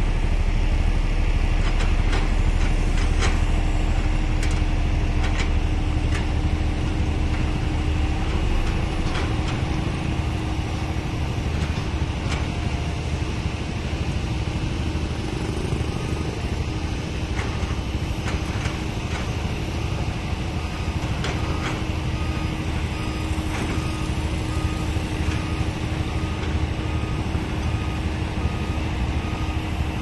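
Kobelco hydraulic excavator's diesel engine running steadily as it works: a low drone with scattered sharp knocks. From about halfway in, a faint beep repeats evenly over it.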